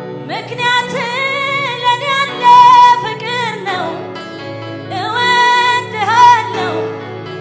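A woman sings a gospel song into a microphone over a steady sustained instrumental backing, in two long phrases with vibrato: the first lasts about three seconds, and the second starts about five seconds in.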